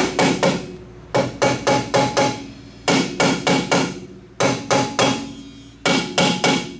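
Hammer blows on the rear brake drum of a 2000 Mitsubishi Mirage, struck in quick runs of three to five with short pauses between them, each blow leaving a brief metallic ring. The drum is stuck on pretty good and does not come loose.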